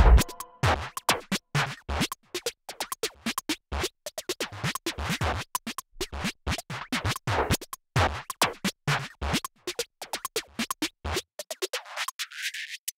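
Dough being handled in a steel bowl: many short, irregular taps and clicks as the dough balls are pressed and set down against the metal. Near the end, flour is sprinkled onto the stone counter as a light, high patter.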